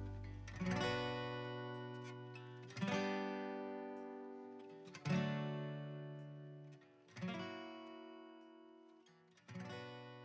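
Acoustic guitar music: slow strummed chords, each left to ring out and fade before the next, one about every two seconds.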